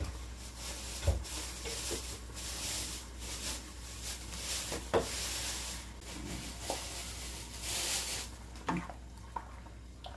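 A large pot of soup simmering on a portable gas burner, a hissing bubble that rises and falls, with a few light knocks as sliced green onion goes into the pot.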